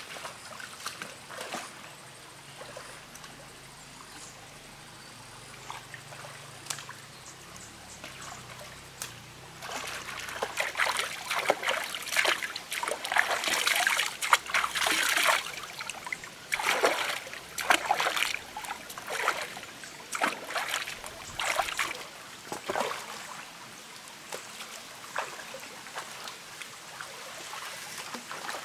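Shallow rocky stream trickling, with hands scooping and splashing water, a dense run of splashes through the middle as the water is thrown onto the face, then a few lighter splashes toward the end.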